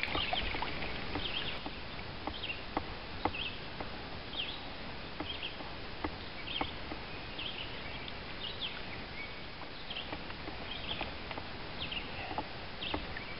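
Lakeside outdoor ambience: short high chirps repeating about once a second over a steady hiss, with scattered small clicks.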